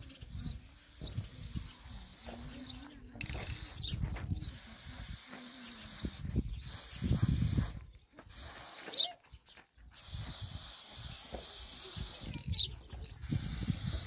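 Aerosol spray-paint can hissing in a string of bursts, each broken off by a brief pause.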